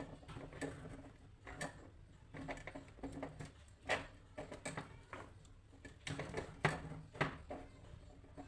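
Irregular clicks, taps and light knocks of hands handling small tools and plastic headphone parts on a workbench, a dozen or so short sounds with pauses between them.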